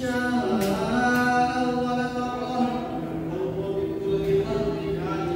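A single voice chanting in long, held notes that slide and bend in pitch, in the style of an Islamic call to prayer or Quran recitation.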